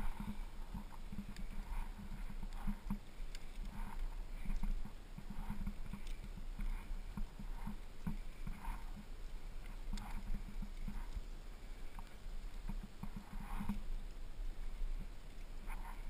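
A climber moving up a granite crack, heard through a head-mounted camera: irregular soft knocks and scuffs of hands, shoes and gear against the rock and the camera mount.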